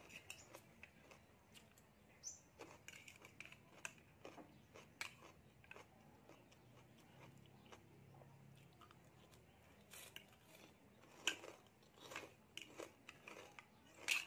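Quiet eating sounds: a metal spoon and fork clicking against a plate, with soft chewing. The clicks are scattered and irregular, with a couple of sharper clinks near the end.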